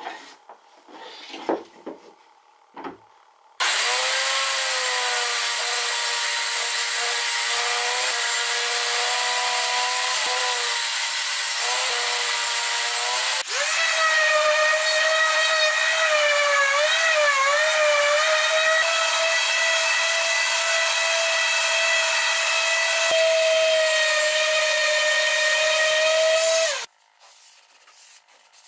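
Random orbital sander running steadily on a fir shelf board: a loud, high whine over the hiss of sanding, its pitch stepping up about halfway through. A few wooden knocks before it starts, and it stops near the end.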